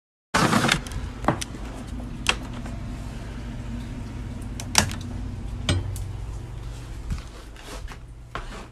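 A large icicle snapping off a house's eaves with a sharp crack about half a second in, then scattered knocks and clicks over a steady low hum.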